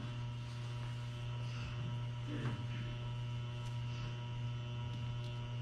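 Steady electrical mains hum, with a faint short sound about two and a half seconds in.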